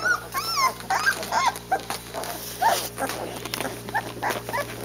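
Thirteen-day-old Boerboel puppies whimpering and squeaking, a rapid string of short high calls that rise and fall in pitch.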